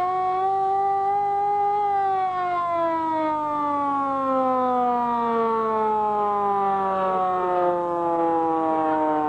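Hand siren wailing: its tone holds high for about two seconds, then slowly slides down in pitch as the rotor winds down.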